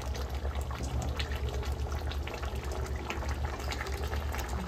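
Mutton curry boiling in the pot, with thick gravy bubbling and popping in many quick small blips over a steady low hum.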